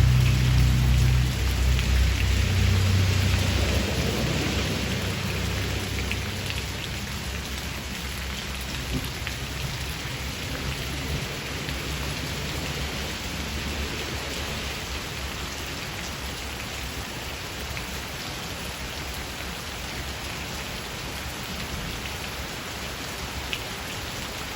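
Steady rain shower falling, with a low rumble of thunder at the start that dies away over the first few seconds. A few single drops tick louder now and then.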